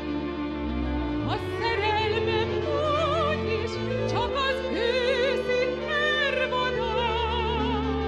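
A woman singing a Hungarian song into a microphone with wide vibrato, over instrumental accompaniment with sustained bass notes.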